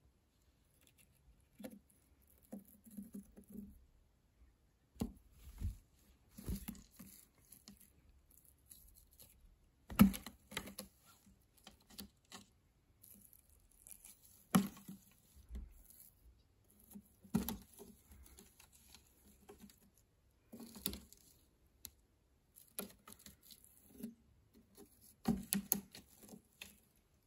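A cat playing with a wand toy on a cat tree: irregular scuffling, rustling and claw scratching, with a few sharp knocks, the loudest about ten seconds in.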